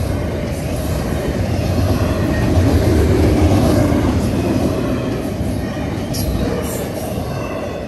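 Double-stack intermodal train's well cars rolling past at speed, a steady rumble and clatter of steel wheels on rail. Two brief high squeals come about six and seven seconds in, and the noise fades near the end as the last cars pass.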